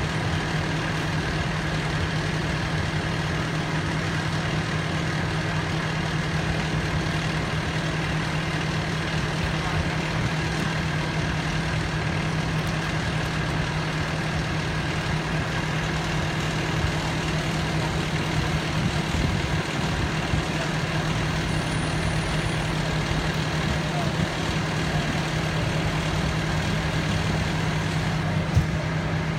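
Fire engine's engine idling steadily, an even low hum with no change in speed. A single short knock sounds near the end.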